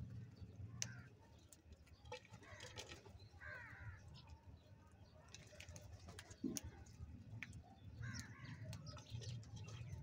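House crows calling faintly now and then, with a couple of short calls near the middle and again toward the end. Scattered light taps and a low steady hum run underneath.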